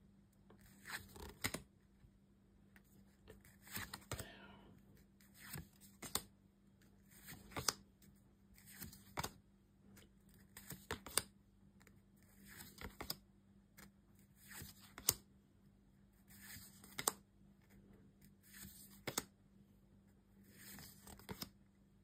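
Pokémon trading cards being slid one at a time off a hand-held stack: a short papery scrape ending in a light snap every second or two. A faint steady hum runs underneath.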